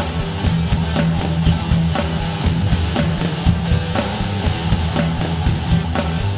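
Background rock music with a fast, steady drum beat.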